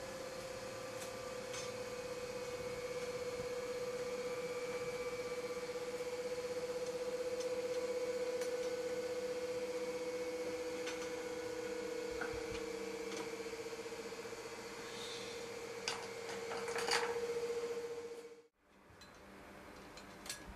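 Light clicks and taps of steel carrier tubing being handled and fitted on a bicycle frame jig, over a steady hum. A louder metallic clatter comes near the end, and the hum stops abruptly soon after.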